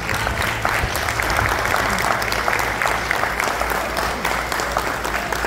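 A hall full of people applauding, many hands clapping at once; the applause breaks out as the music ends and carries on steadily.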